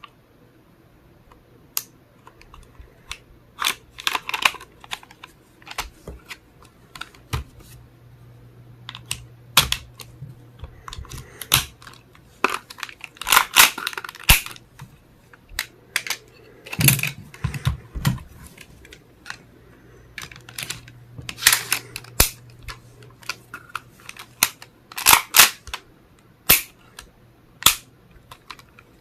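Tokyo Marui MP7A1 gas blowback airsoft gun being handled during field stripping: irregular clicks, clacks and rattles of its parts being taken apart and fitted together, in scattered clusters.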